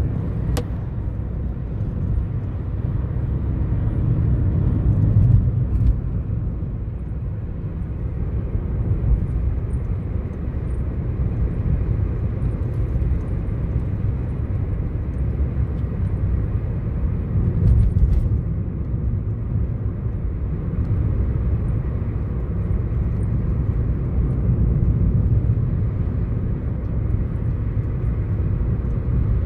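Steady low rumble of road and engine noise inside a moving car's cabin, with a short click shortly after the start.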